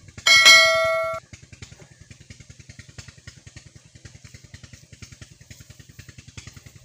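A single loud metallic clang about a quarter of a second in, ringing for about a second, from metal parts being handled on a stationary diesel engine. Under it, an engine runs steadily with a rapid, even pulsing.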